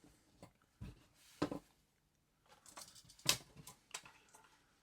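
Faint clicks and taps of a folding knife being handled, a handful of separate light knocks, the loudest about three seconds in.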